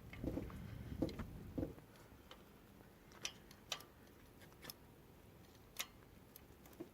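Light irregular metal clicks and taps as a small screwdriver and a new rocker arm are worked into place against the camshaft and valve train of a Pentastar 3.6 V6, with low handling rumble over the first second or so.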